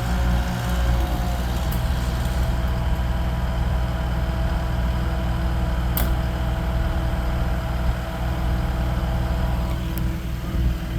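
A large engine running steadily, with a sharp knock about six seconds in and another near the end.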